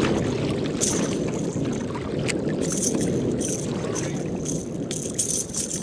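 Choppy lake water lapping against a fishing kayak's hull: a steady wash of water noise with irregular small splashes.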